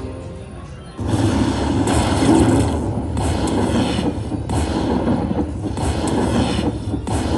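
Slot machine bonus sound effects: a sudden booming, rumbling noise starts about a second in and carries on, surging brighter about every second and a quarter.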